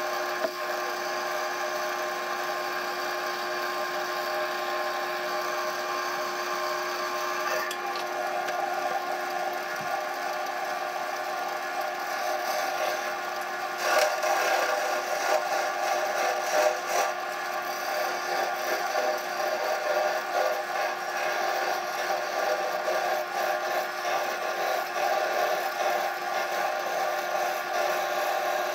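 Wood lathe motor running with a steady whir while a cloth is rubbed against the spinning spalted cherry goblet to apply friction polish. The rubbing grows louder and more uneven about halfway through.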